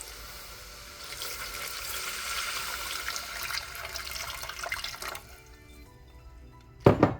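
Water poured into a cooking pot of caramelized onions, running for about four seconds and then stopping, followed near the end by one sharp knock.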